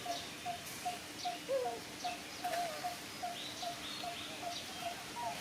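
Birds calling: a short low note repeated evenly about two and a half times a second, with higher chirps and a few brief wavering calls over it.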